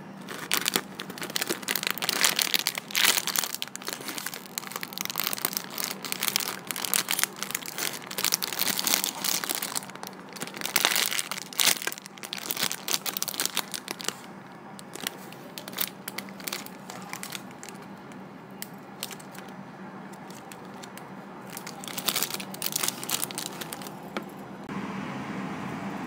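Clear plastic bags crinkling in irregular bursts as the toys inside them are handled and turned over. Near the end the crinkling stops, leaving a steady background hum.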